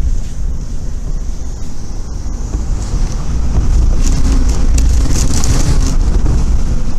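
Hurricane wind gusting hard, with wind buffeting the microphone as a deep rumble. It builds from about three seconds in to its loudest around four to six seconds in.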